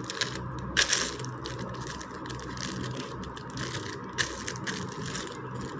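Thin clear plastic cover crinkling and rustling as hands fold it in two and smooth it flat, with a few sharper crackles about a second in and about four seconds in, over a steady low hum.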